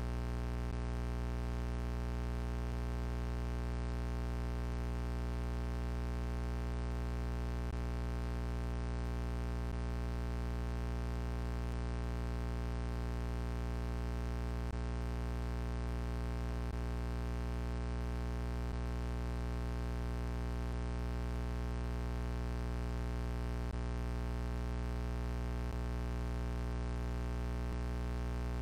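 A steady, unchanging low buzzing hum with a stack of evenly spaced overtones, typical of electrical hum on a recording line.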